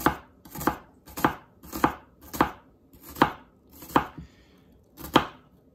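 Chef's knife slicing through half a red onion, each cut ending in a knock on a plastic cutting board. About eight steady cuts come a little more than one a second, with a longer pause about four seconds in before the last one.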